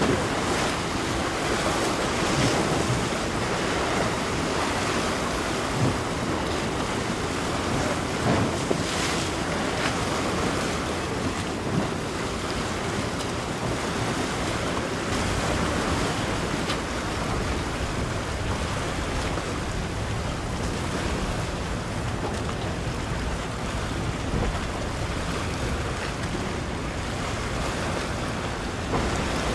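Steady wind rushing on the microphone over the wash of choppy water and a large ship's bow wake, with a few brief gusts bumping the microphone.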